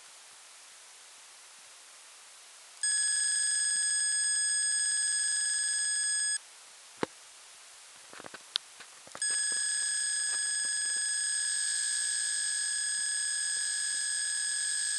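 Electronic carp bite alarm sounding a steady high tone as a mirror carp runs with the line: once for about three and a half seconds starting about three seconds in, then again from about nine seconds in without stopping. A few sharp clicks come in the gap between.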